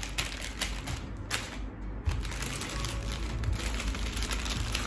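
Baking paper rustling and crinkling as hands press it down over shortcrust dough and a wooden rolling pin is rolled across it, in irregular scratchy bursts.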